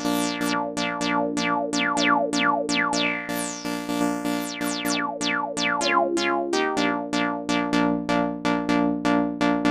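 Synth lead loop from the Maschine sampler, about three notes a second over steady lower held tones. On each note the bright top sweeps quickly downward as the filter resonance is turned up, giving an acid-style squelch.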